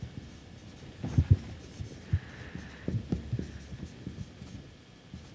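Marker writing on a whiteboard: soft, irregular knocks and taps with a faint scratching of the marker tip as words are written.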